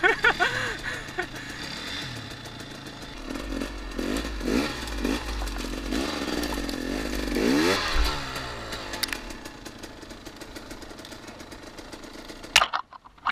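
2014 KTM XC-W 250 two-stroke dirt bike engine running at low speed and revving in short bursts, pitch rising and falling, then cutting out suddenly near the end.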